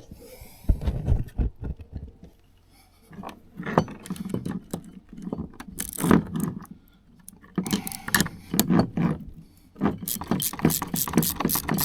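Metal clinking and scraping as wire-rope clamps and tools are handled on a winch cable. From about ten seconds in, a ratchet wrench clicks rapidly, about five clicks a second, tightening a clamp nut.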